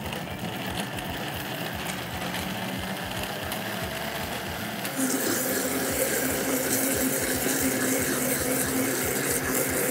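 Royal Prestige Power Blender Max running, blending a hot vegetable soup as cream is added through the lid to bind it into a cream soup. About five seconds in the motor gets louder, with a steadier hum.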